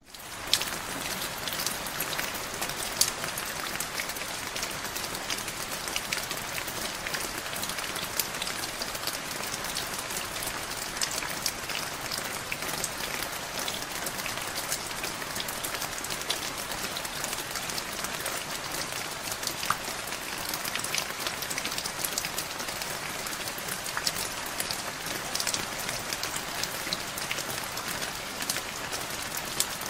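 Steady rain falling: a dense, even hiss with scattered droplet ticks, fading in at the very start.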